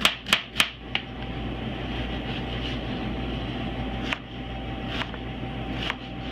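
A chef's knife chopping an onion on a cutting board: four quick strokes in the first second, then three single cuts about a second apart. Under them runs a steady mechanical hum, like a fan.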